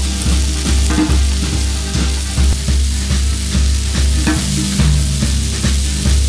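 Pork sausages sizzling in their fat on a hot metal barbecue griddle, with a steady frying hiss and a metal spatula scraping as it turns them. A low, regular bass pulse runs underneath.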